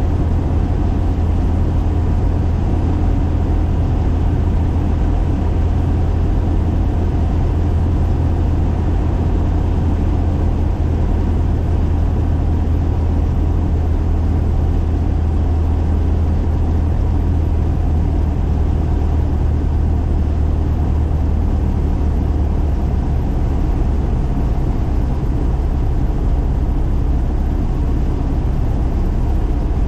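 Single-engine light airplane's piston engine and propeller droning steadily, heard from inside the cockpit during the approach to land.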